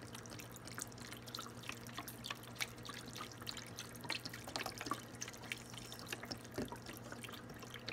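Beef stock pouring from a carton into a Dutch oven of browned beef: a faint, steady trickle with small drips and splashes as the liquid fills around the meat.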